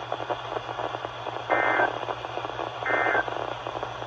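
NOAA Weather Radio channel hissing with static, then two short digital SAME data bursts a little over a second apart. These are the end-of-message bursts that close a severe thunderstorm warning broadcast.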